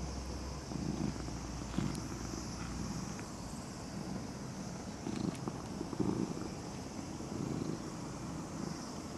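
A black-and-white stray cat purring as it is massaged: a low, continuous purr that swells and fades.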